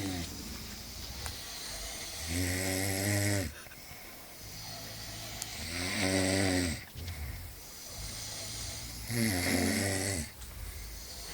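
A sleeping person snoring: three loud snores, each about a second long and spaced roughly three and a half seconds apart, with quieter breathing between them.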